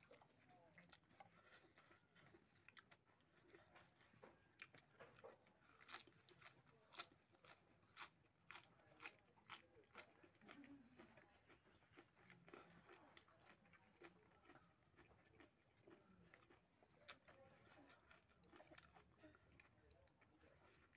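Faint close-up eating sounds: a man chewing pork hock curry and rice, with a run of sharp wet mouth clicks in the middle, over the soft squish of fingers mixing rice and curry on a banana leaf.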